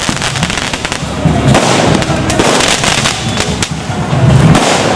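Fireworks going off overhead: a dense run of rapid pops and crackles, busiest in the middle.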